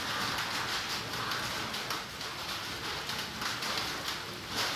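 Outdoor forest ambience: a steady hiss that swells and fades unevenly, with no single clear source standing out.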